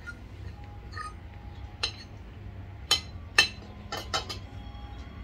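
Metal spoon and fork clinking against a dinner plate: about five short, sharp clinks, the loudest about three seconds in.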